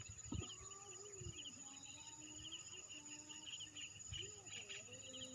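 Evening insect chorus: crickets chirping in rapid, repeated trills over a steady high-pitched insect drone. A faint wavering lower tone and a few soft knocks sit underneath.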